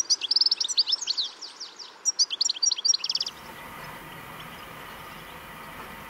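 European goldfinch calls: quick runs of liquid, tinkling twitter notes that stop about three seconds in. After that only a steady low rumble remains.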